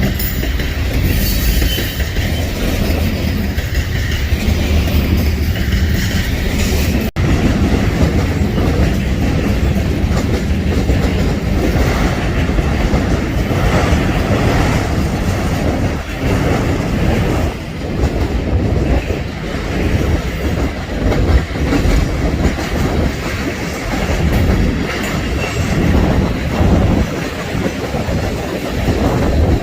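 Freight train rolling past at speed, its wheels clacking rhythmically over the rail joints, with a steady rumble of the cars.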